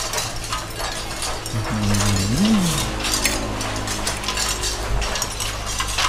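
Metal spoon and fork clinking and scraping against a ceramic plate of stir-fried seafood while eating. About two seconds in there is a short closed-mouth "mmm" hum that rises and falls in pitch.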